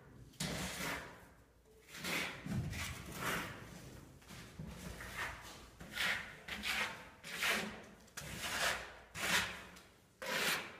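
Steel trowel scraping mortar across sibit (aerated concrete) blocks in a run of repeated short strokes.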